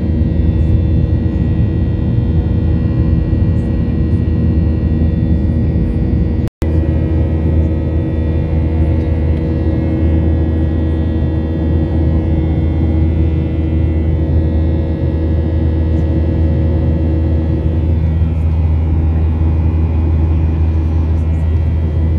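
Airliner cabin noise in flight: a steady, loud low drone of engines and rushing air, with a few faint steady tones above it. The sound cuts out for an instant about six and a half seconds in.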